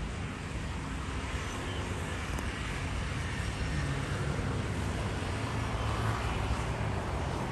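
Steady low rumble of distant engine noise, swelling slightly over several seconds.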